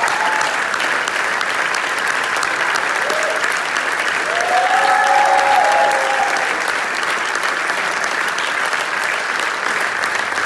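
Theatre audience applauding steadily, a dense wash of many hands clapping. A few voices cheer above it about halfway through, where the applause briefly swells.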